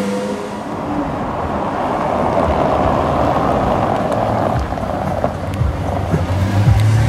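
Lamborghini Aventador Roadster's V12 running at low revs amid street traffic noise. A rushing swell comes midway, and a steadier low engine hum firms up near the end.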